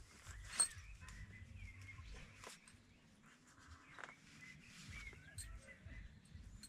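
Faint birds chirping outdoors, with a few sharp, separate taps or knocks, the loudest about half a second in.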